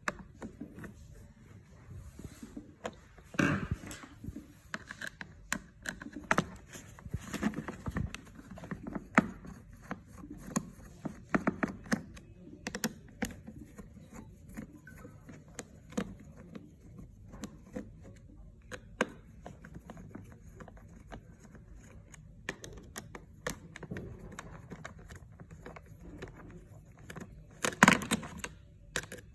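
Irregular clicks, taps and knocks of small hard objects being handled, with a louder cluster of knocks near the end.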